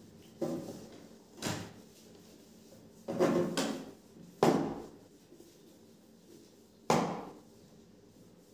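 A whiteboard duster wiped across a whiteboard in about six quick, separate scrubbing swipes, each fading fast, with the gaps between them getting longer.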